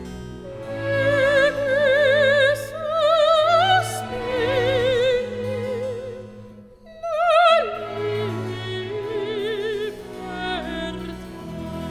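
Background music: an operatic voice singing long, heavily vibrato notes over a light accompaniment, with a brief break about two-thirds of the way through.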